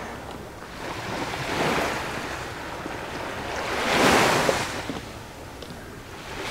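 Sea waves washing up on a beach in two swells, the louder one about four seconds in.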